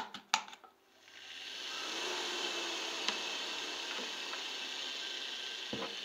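Washing-machine induction motor (two-speed, capacitor-run, Indesit/Rainford type M12.93.01.45) switched on with a click, spinning up over about a second to a steady whir. It runs on its 2820 rpm high-speed winding, turning the opposite way after its capacitor leads were swapped. A thump near the end.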